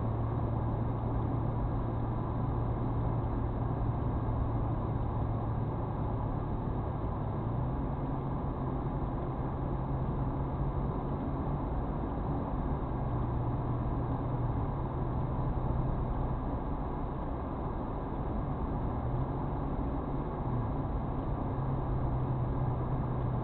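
Car driving, heard from inside the cabin: a steady drone of engine and tyre noise whose low engine hum shifts in pitch a few times as the speed changes.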